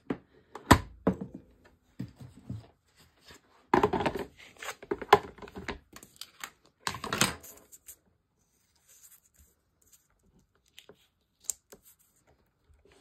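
Cutting plates, a magnetic die mat and cardstock being handled and set into place on a Cuttlebug die-cutting machine: sharp knocks of plate on plate, plastic clatter and paper rustling in a few bursts, then only faint ticks in the last few seconds.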